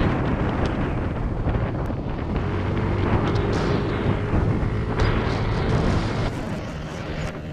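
Motorcycle engine running steadily while riding, nearly buried under heavy wind rush on the microphone.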